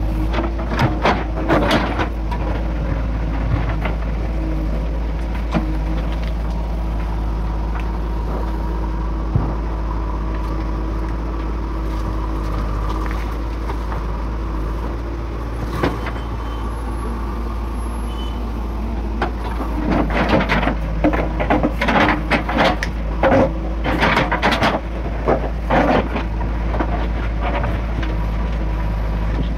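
JCB 3DX backhoe loader's diesel engine running steadily as the backhoe digs, with bursts of knocking and scraping from the bucket working soil and stones near the start and again in a longer run about two-thirds of the way through.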